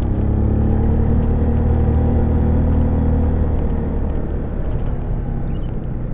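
Honda CB150 motorcycle's single-cylinder engine running at a steady note while being ridden, easing off somewhat after about four seconds.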